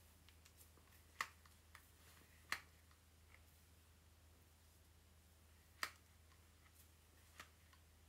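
Hair straightener clicking as its plates snap together: four sharp, separate clicks, three loud ones about a second in, about two and a half seconds in and near six seconds, and a softer one near the end, over a faint steady low hum.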